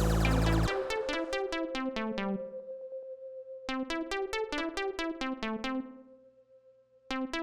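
Background electronic music: a synthesizer keyboard melody of short, evenly paced notes over a held tone. A heavier bass-filled passage drops out less than a second in, the melody fades out near the end, and a new section starts just before the close.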